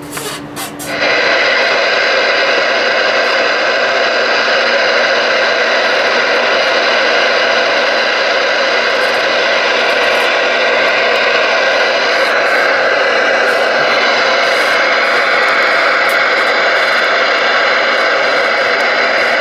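Receiver static from a Galaxy DX-99V2 ten-meter radio's speaker: a loud, steady hiss that comes on suddenly about a second in as the receiver opens up on the band.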